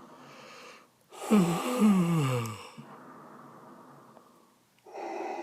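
A low vocal sound effect for the Sarlacc settling down to digest: a long groan whose pitch falls steadily, trailing off quietly. Near the end comes a second, shorter and quieter vocal sound.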